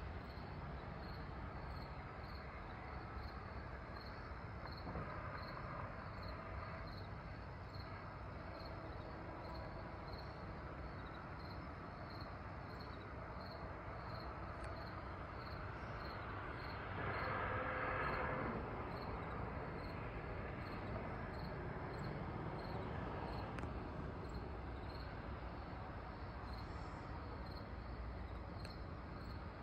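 Crickets and other night insects chirping, with one regular chirp repeating a little more than once a second over a steady background hum of insects. A broad swell of louder noise rises and fades about seventeen to nineteen seconds in.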